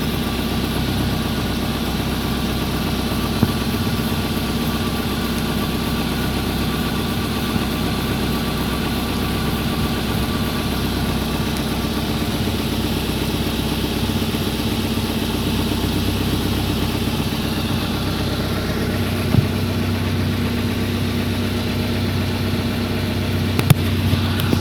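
A car's engine running steadily at idle, with a few short sharp clicks or knocks, the last two near the end.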